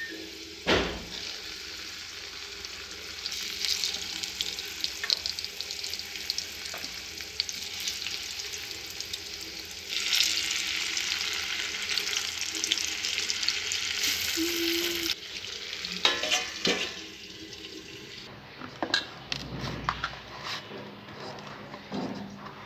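Stuffed potatoes sizzling and crackling in hot oil in a steel kadhai as they are turned, the sizzle louder for about five seconds midway. A knock about a second in, and scattered clinks and knocks of utensils near the end.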